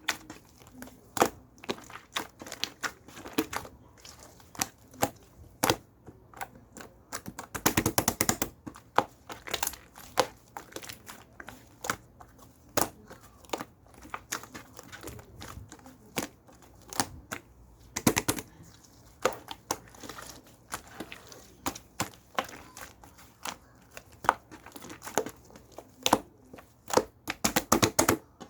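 Mint slime being squished and worked by hand, giving sharp clicking pops as air pockets burst, with a few quick flurries of rapid pops.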